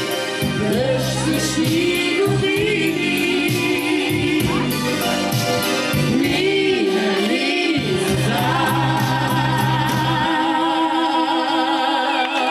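Pop song sung live as a duet by a woman and a man at microphones, amplified over backing music with a steady beat.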